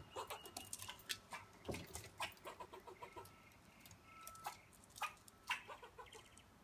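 Squirrel chattering alarm calls: an irregular series of short, sharp clucking calls, with two louder ones about five seconds in.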